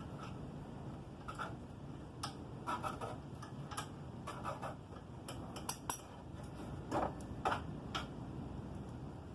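Irregular light metallic clicks and clinks of hand tools and bolts being handled while working on a motorcycle, a dozen or so scattered taps with a few louder ones about seven to eight seconds in.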